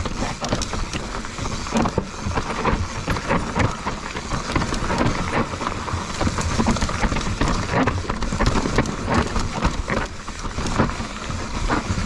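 Lapierre Zesty full-suspension mountain bike ridden over a rough, rocky trail: a dense, continuous clatter of knocks and rattles from tyres, suspension and drivetrain.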